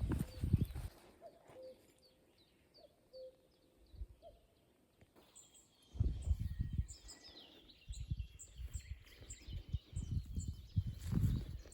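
Small birds chirping in a forest: a run of short, high, falling notes in the first half and busier overlapping calls in the second, over the low thumping and rustle of walking, which pauses for a few seconds and picks up again about halfway.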